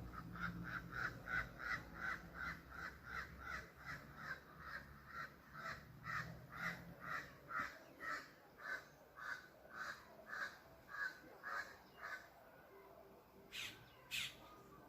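A bird calling in a long, even series of harsh, caw-like notes, about two or three a second, slowing a little before stopping, then two sharp, high calls near the end.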